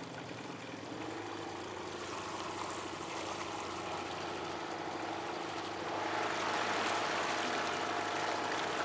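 Outboard motor running steadily at low speed on an inflatable boat, with water washing along the hull. The sound grows a little louder about six seconds in.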